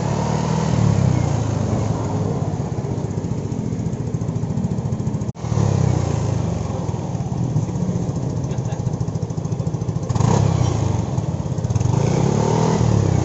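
Yamaha Nmax 155's single-cylinder engine breathing through an original Honda CBR250RR muffler, idling with short throttle blips about a second in and twice more near the end. The sound drops out for an instant near the middle.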